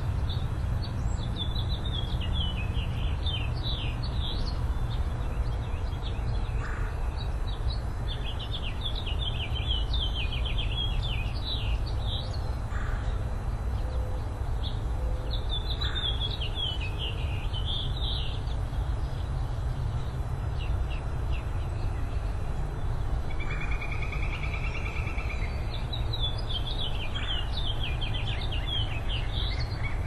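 Small songbirds singing repeated quick chirping phrases, with a short buzzy trill about three quarters of the way in, over a steady low rumble.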